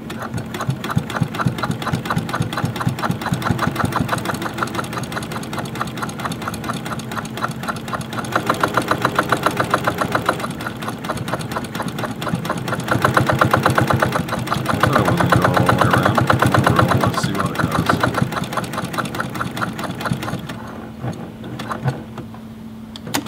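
Brother PQ1500S straight-stitch sewing machine running fast, its size 110/18 denim needle punching through a thick denim jeans hem, speeding up and slowing several times before stopping near the end. A couple of sharp clicks follow just at the close.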